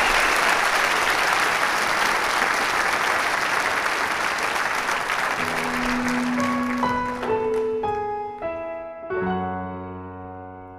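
Audience applauding, dying away over the first eight seconds or so. About five and a half seconds in, slow music for the dance begins, sustained notes entering one after another and ringing on as the applause fades.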